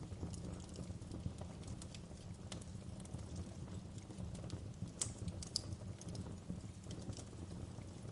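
Wood fire crackling in a fireplace, with irregular sharp pops over a steady low rumble and an even rain hiss; one louder pop about five seconds in.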